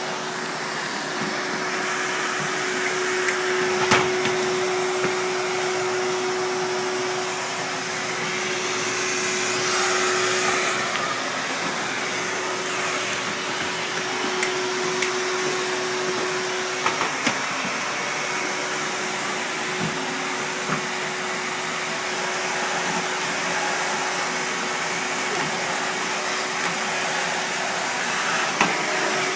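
Household vacuum cleaner running steadily, its motor giving an even whine over a rushing air noise, with a few brief knocks.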